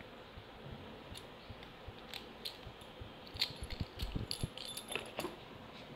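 Quiet, scattered clicks and light metallic taps of a padlock and its keys being handled, growing busier from about halfway through.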